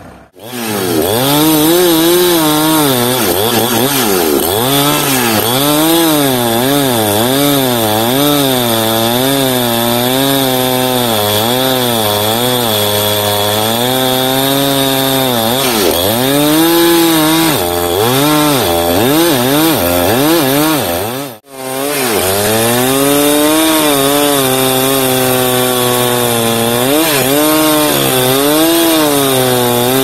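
Two-stroke chainsaw cutting through a felled teak log. Its engine pitch keeps dipping and recovering about once a second as the chain loads in the wood. It breaks off briefly about two-thirds of the way through.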